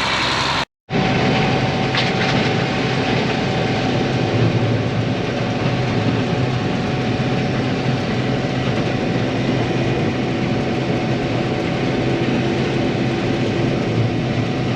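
Combine harvester running steadily under load with a constant hum, cutting wheat for a test cut.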